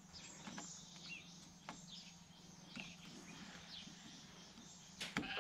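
Faint background of birds chirping, with a few light clicks and rustles as a rope is worked through a small hole in a plastic kayak hull, over a low steady hum. A short pitched animal call comes near the end.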